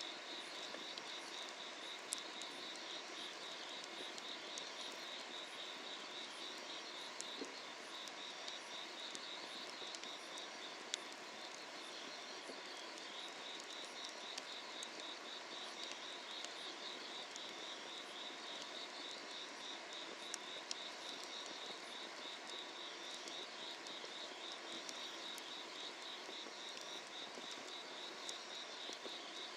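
Insects chirping in a steady pulsing trill, with a few sharp crackles from a wood fire burning under an iron cauldron.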